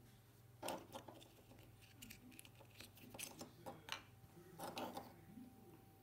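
Scattered light clicks and knocks of small plastic PCB relays being handled on a wooden tabletop, over a faint steady low hum.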